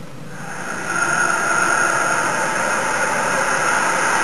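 Steady vehicle engine noise that swells up over about the first second and then holds steady.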